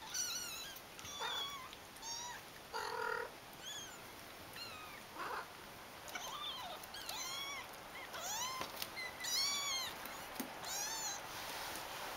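A litter of young kittens mewing: many short, high-pitched squeaky calls, each rising then falling, coming thick and fast and often overlapping. A few lower meows sound among them, around three and five seconds in.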